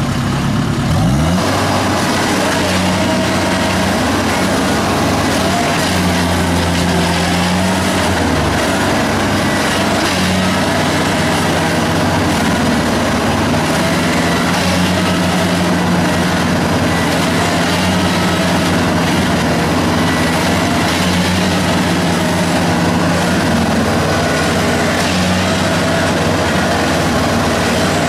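Diesel engine of a tracked rice combine harvester revving up about a second in, then running hard and steady under load while it pulls to free a tracked tractor-cart stuck in the mud.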